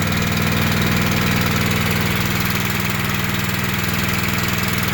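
Honda GX240 single-cylinder four-stroke engine running steadily, started again after its locked-up piston was broken free and the cylinder blown out.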